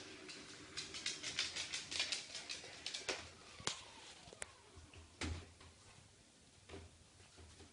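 A dachshund's claws clicking rapidly on a hardwood floor as it trots, then a few separate knocks as it noses into the plastic bowl of an automatic ball launcher.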